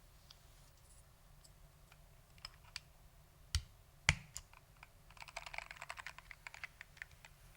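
Foam-damped Lunar AEK 65 mechanical keyboard with SKCM Orange Alps switches being typed on: a few scattered keystrokes, two louder key strikes about half a second apart around the middle, then a quick run of rapid typing.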